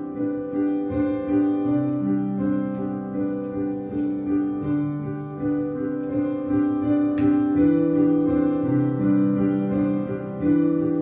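Instrumental music on a keyboard: slow, held chords that change every second or two, with no singing.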